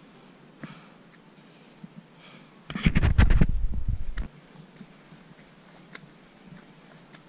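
Wind buffeting the microphone in one sudden gust of about a second and a half, near the middle. Before and after it there is only a faint hiss with a few light clicks.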